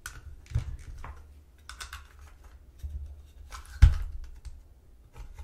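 Small screwdriver prying at the plastic clips of a handheld vacuum's motor housing: scattered clicks and scrapes of hard plastic, with one sharp knock a little under four seconds in.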